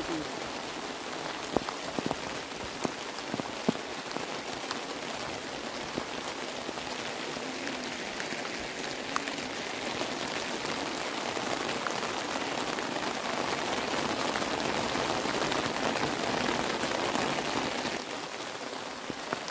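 Heavy rain falling steadily, with drops hitting the umbrella held just above the microphone as scattered sharp taps over an even hiss.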